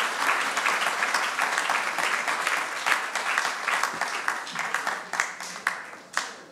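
Audience applauding. The clapping thins out near the end to a few scattered last claps.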